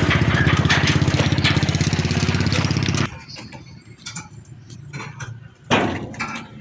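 Combine harvester's diesel engine running close by, a rapid, even chugging that cuts off abruptly about three seconds in. After that it is much quieter, with a few light knocks and one loud short clatter near the end.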